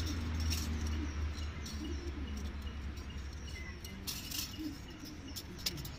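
Faint light metallic clicks and clinks of a feeler gauge being worked against the valve gear of a motorcycle cylinder head, over a steady low hum, with a short cluster of clicks about four seconds in.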